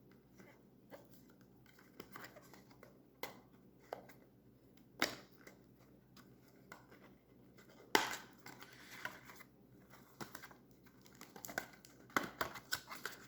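Retail packaging of a speed cube being handled and opened by hand: faint, scattered scrapes, clicks and rustles, with sharper clicks about five and eight seconds in and a quick run of them near the end.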